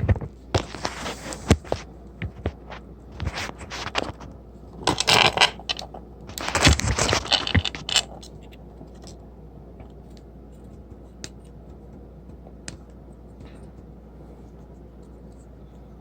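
Leatherman Rebar multi-tool's folding tools being opened out by hand: sharp metal clicks and scraping for about eight seconds, then only a few faint ticks.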